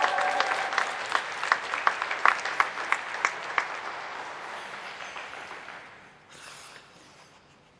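Audience applauding in an ice rink, the clapping thinning out and dying away about four seconds in. A faint brief hiss follows near the end.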